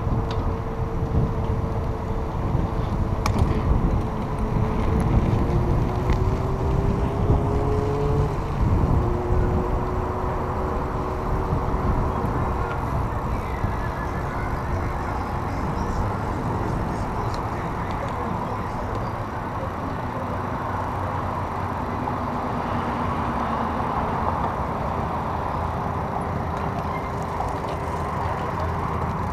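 Wind rumbling on a handlebar-mounted GoPro's microphone, with tyre noise on the road, as a bicycle rides along in a group. A faint hum drops in pitch a few times in the first third.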